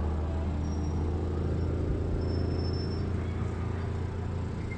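An engine running steadily off-screen, a low even rumble, with two faint high whistles over it.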